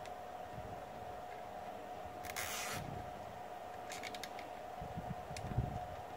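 Plastic cable tie being pulled through its ratchet head on a metal TV wall mount: a short zip about two seconds in, then a few quick clicks.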